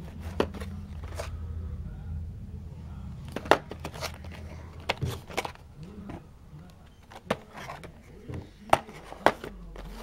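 Cardboard box of a toy train alarm clock being handled and turned over: scattered taps, knocks and scrapes of the packaging, over a steady low hum.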